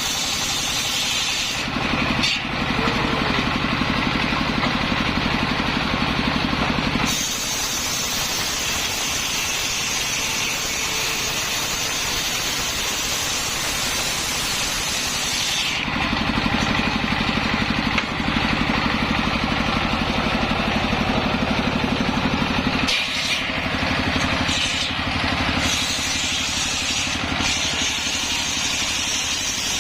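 Circular saw running steadily through hard coconut-palm wood. Twice the sound turns deeper and evenly pulsing for several seconds while the high hiss drops away: once about two seconds in and again from about the middle until near the end.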